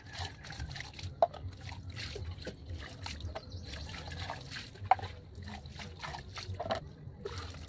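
Dishes being washed by hand: water trickling and sloshing, with clinks and knocks of dishes. Two sharper clacks stand out, one about a second in and one a little past the middle.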